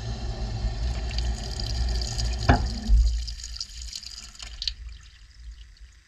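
Water rushing into a washing machine's drum as it fills, heard from inside the drum among the clothes, with a deep rumble under the rush. There is a single knock about two and a half seconds in, and the rush dies down over the last few seconds.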